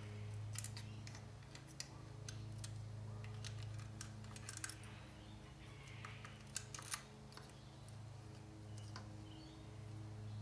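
Faint, scattered small metallic clicks and taps as a throttle cable end is worked into the carburettor linkage with a hand tool, over a steady low hum.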